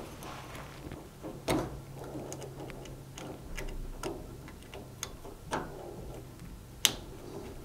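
Electrical spade connectors being worked off and pushed onto the terminals of a washing machine mains filter: a series of small, irregular clicks, with a sharper one about a second and a half in and another near the end.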